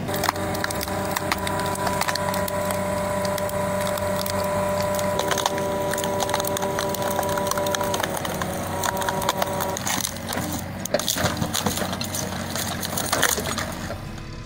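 A heavy machine running with a steady whine while wood cracks and splinters under it. About ten seconds in, the steady whine drops away and the cracking turns rougher and more broken.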